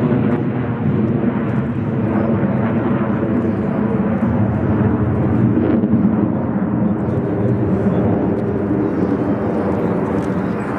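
Aircraft engine noise: a loud, steady drone that holds through the whole stretch.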